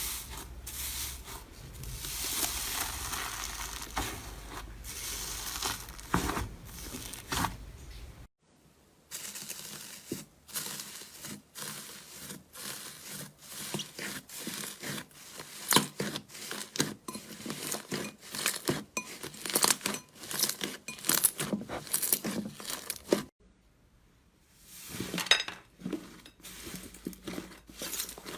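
Slime being handled: a dense run of sticky crackles, small pops and clicks, in three stretches separated by two brief silences, about eight seconds in and near the end.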